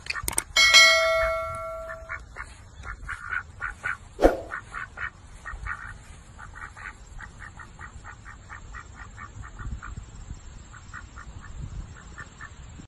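White domestic ducks quacking in quick short calls, about three a second, as they waddle along. A loud ringing chime sounds about half a second in and fades over a second or so, and there is a sharp knock about four seconds in.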